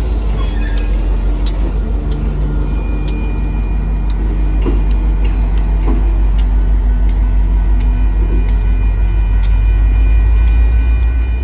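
Reading and Northern diesel-electric locomotive rolling past at walking pace, its engine a loud, deep rumble that builds slightly toward the end, while a grade-crossing bell dings steadily. A thin steady whine joins about two and a half seconds in.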